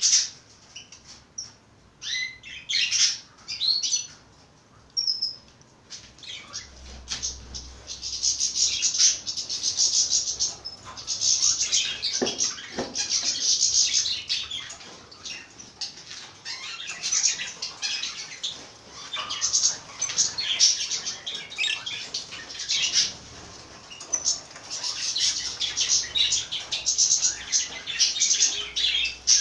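Several small pet birds chirping and twittering: scattered chirps at first, then a dense, continuous chatter from about six seconds in.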